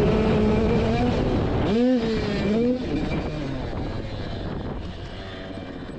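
KTM supermini dirt bike's two-stroke engine at high revs, dipping and climbing back up in pitch briefly about two seconds in. Then the engine note drops and fades away over the last few seconds, under a steady rush of wind on the microphone.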